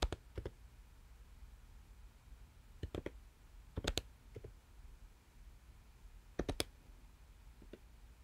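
Computer keyboard keys clicking in a few short, spaced clusters of keystrokes as a terminal command is typed and entered.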